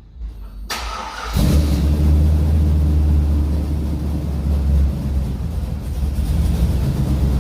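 A vehicle engine being started: the starter cranks briefly, the engine catches about a second and a half in, then settles into a steady, deep-running idle.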